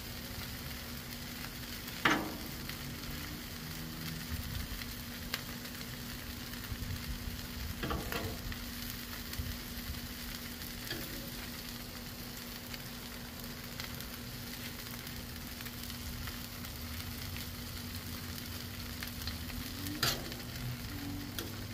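Shredded cheese and a tortilla frying on a Blackstone flat-top steel griddle: a steady sizzle. A few sharp clicks of metal tongs on the griddle plate come about two seconds in, around eight seconds and near the end.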